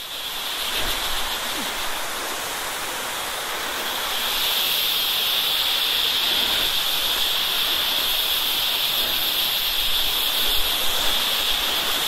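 A small forest waterfall and the shallow stream below it rushing over rock, a steady even roar of water. Over it runs a steady high-pitched drone that grows louder about four seconds in: an unseen creature calling in the forest.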